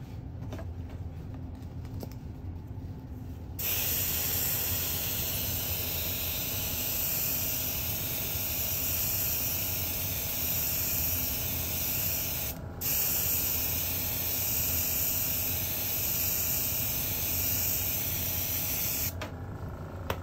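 Airbrush spraying paint: a steady, loud hiss of air that starts about three and a half seconds in, breaks off for a moment about two-thirds of the way through, and stops about a second before the end. A low steady hum runs underneath.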